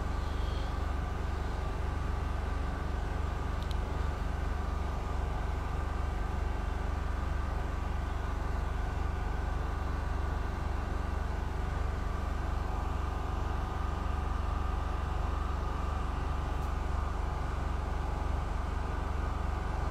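Steady low rumble with a faint steady hum above it, unchanging throughout, with no distinct events.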